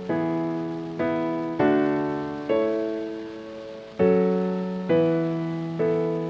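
Background music: slow piano chords, each struck and left to ring and fade before the next.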